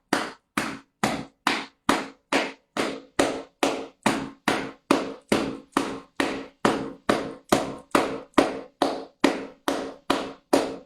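Steady rhythmic patting: sharp slaps on the armpit, close to three a second, as part of a meridian-patting (paida) self-massage routine.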